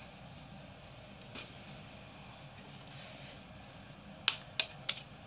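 Kitchen knife blade tapping an eggshell to crack it: one light tap about a second in, then three sharp taps in quick succession near the end.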